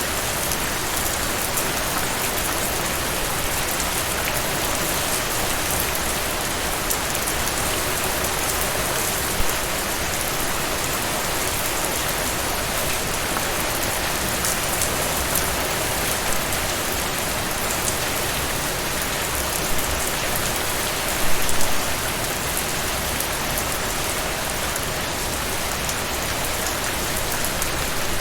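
Steady rain falling: an even hiss dotted with the ticks of individual drops, with a few brief louder spatters about nine seconds in and again around twenty-one seconds.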